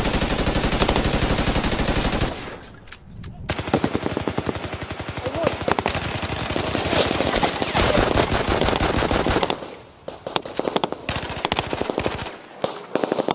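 Sustained automatic gunfire in rapid bursts. It stops about two seconds in, resumes a second later for several seconds, then breaks into scattered shorter bursts near the end.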